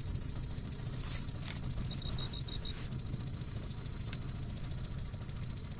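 Small outboard motor running steadily at low trolling speed, a low hum. About two seconds in comes a short run of rapid high beeps.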